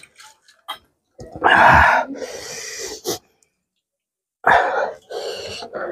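A person coughing in two loud fits, about three seconds apart, each trailing off into a hissing breath, as from eating very spicy food.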